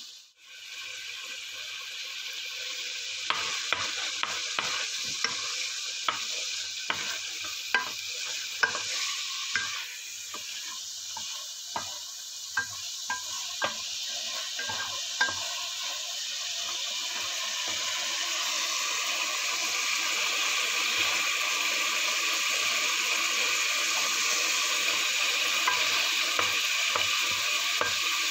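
Squid pieces sizzling as they fry in oil in a nonstick pan, with a wooden spatula clicking and scraping against the pan many times during the first half. The sizzle grows steadily louder toward the end.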